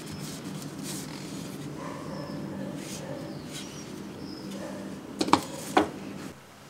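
A homemade wooden bar clamp being handled on a workbench: light rustling and clicks over a steady low hum, then two sharp wooden knocks about half a second apart near the end as the clamp is set back down.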